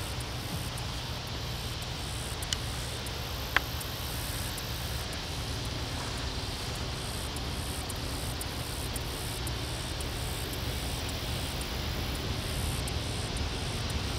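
Steady outdoor background hiss with a low rumble underneath, broken by two brief clicks about a second apart a few seconds in.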